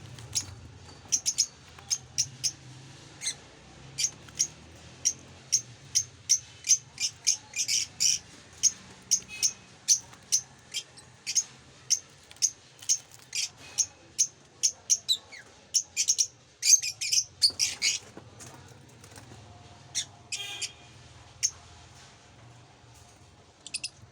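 Lovebirds chirping: a rapid run of short, sharp, high-pitched chirps, two or three a second, that thins out to a few scattered calls after about eighteen seconds.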